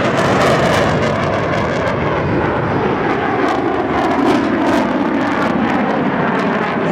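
Jet aircraft engine noise, loud and steady throughout, from a fast jet flying display manoeuvres overhead.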